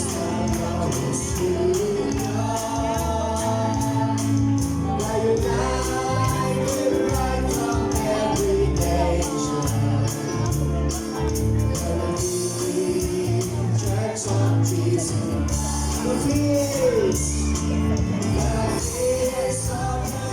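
Live gospel worship song: voices singing over a steady beat and bass.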